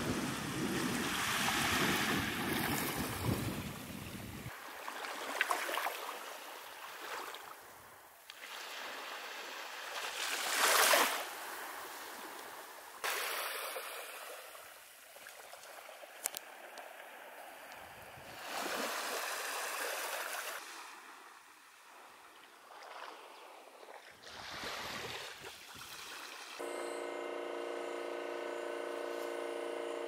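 Small waves washing onto a sandy beach, the wash swelling and fading every several seconds, with wind rumbling on the microphone for the first few seconds. Near the end a steady hum with several tones takes over.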